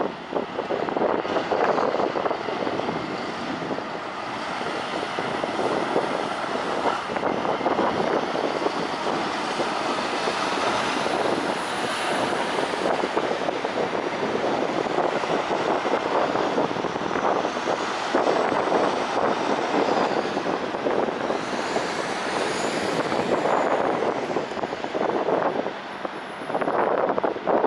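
Road traffic: cars and trucks passing, a steady rumble that swells and fades several times as vehicles go by.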